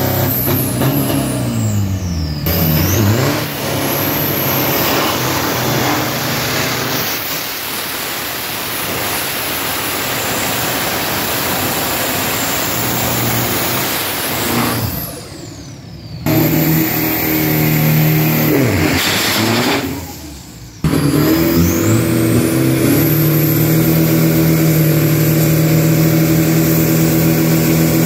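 Drag-racing pickup trucks' engines revving hard as their rear tyres spin in smoking burnouts, the revs rising and falling. Near the end the engines are held at steady high revs on the start line.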